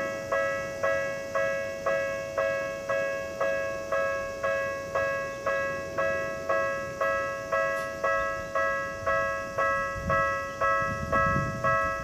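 Japanese level crossing warning alarm sounding its repeated clanging ring, about two strikes a second, while the barriers are down: the signal that a train is approaching. A low rumble comes in near the end.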